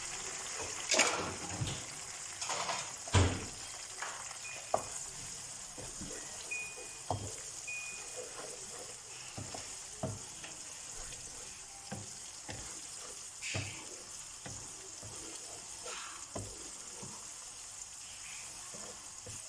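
Chopped tomatoes and sautéed onions frying in oil in a karahi: a steady sizzle, with irregular knocks and scrapes as they are stirred, the loudest in the first few seconds.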